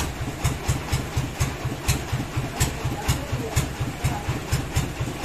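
Stationary engine idling with a steady low chugging, about six beats a second, and a sharp tick about twice a second.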